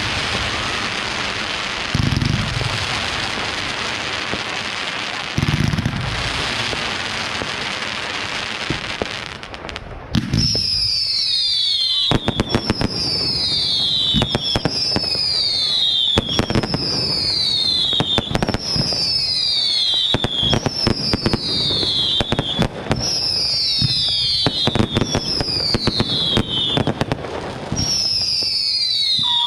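Fireworks display: for the first ten seconds dense crackling with a few deep booms, then a run of about nine whistling shots, each a falling whistle, roughly every two seconds over continuous sharp cracks.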